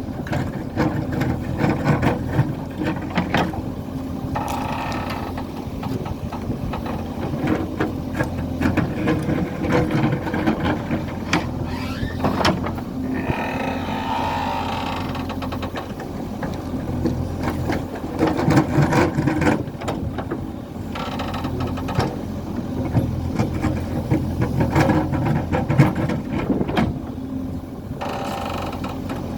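A JCB 3DX backhoe loader's diesel engine running steadily, with frequent metallic clanks and ticks. There are a few stretches of louder, higher working noise.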